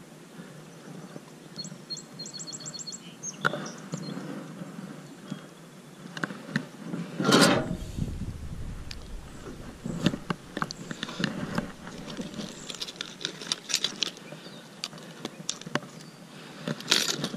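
A bird gives a quick trill of about eight high notes about two seconds in. About seven seconds in comes a brief, loud splash as the largemouth bass is let back into the water, followed by scattered clicks and taps.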